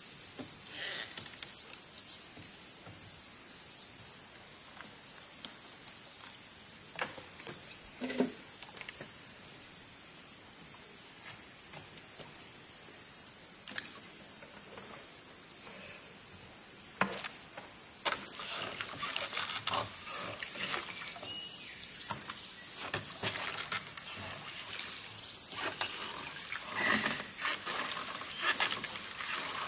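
Insects chirring steadily in a high, even drone. Scattered clicks and knocks on top, busier and more rustling in the second half.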